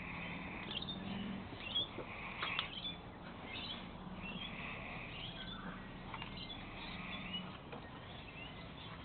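Staffordshire bull terrier puppies play-fighting, giving repeated high squeaky whines and little growls, with a couple of sharp knocks about two seconds in.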